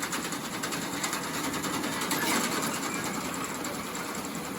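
Hay bale elevator running with a fast, even mechanical rattle as it carries a bale up to the loft.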